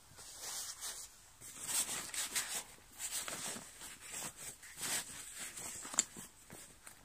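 Nylon fabric of a folding bucket-style camping chair and its carry bag rustling and scraping in irregular bursts as the chair is stuffed into the bag by hand, with one sharp click near the end.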